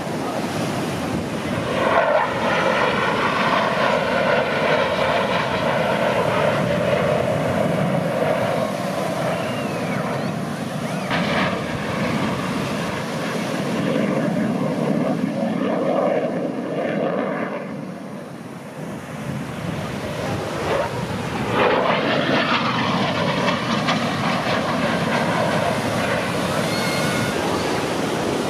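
U.S. Air Force Thunderbirds F-16 fighter jets flying past with a loud, steady jet roar. The roar swells about two seconds in, eases off for a moment around two thirds of the way through, then swells again.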